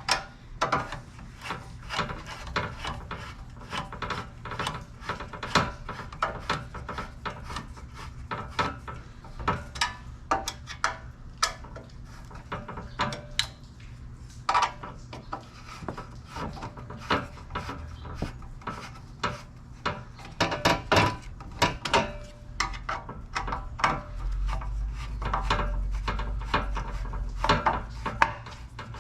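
Repeated rasping strokes of hand work rubbing or filing on a part, a few strokes each second. A low hum comes up in the last few seconds.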